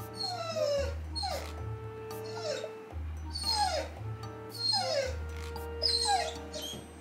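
Dog whining over and over, about six short high-pitched whimpers that each fall in pitch, roughly one a second.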